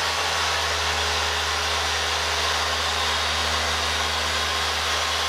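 Dual-action car polisher running steadily under load on a painted door panel, a constant motor whir with a low hum.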